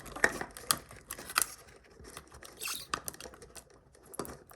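Small plastic toy packaging being handled and worked at by hand: scattered sharp clicks, taps and short crinkling scratches, irregular and with quiet gaps, as it resists opening.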